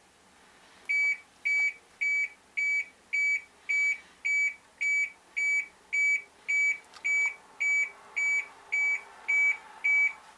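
Dashboard warning buzzer beeping in an even rhythm, just under two short high beeps a second, starting about a second in. It sounds with the key on and the engine not running, the CHECK GAUGES lamp lit, while the Caterpillar 3126 diesel waits on its intake heater before a cold start.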